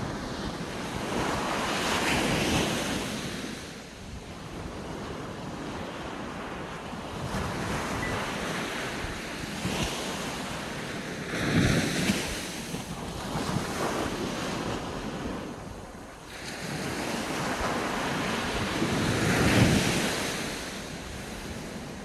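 Small waves breaking and washing up a sandy beach, in slow surges that swell and fade every few seconds, the loudest near the middle and near the end. Wind rumbles on the microphone underneath.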